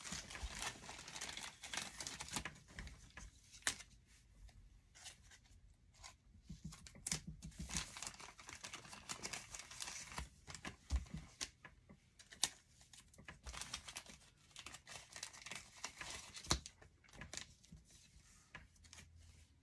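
Foil wrapper of an Upper Deck Series One hockey card pack being torn open and crinkled, with cards being handled. The crinkling and tearing come and go, with a few sharp clicks.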